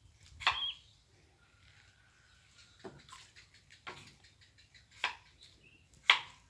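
A series of sharp single knocks, about one a second, over otherwise quiet surroundings.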